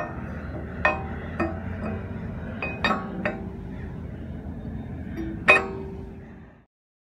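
Rusty iron shackle of a large old US Navy anchor rattled by hand against the anchor's shank: about eight ringing metal clanks, the loudest about five seconds in.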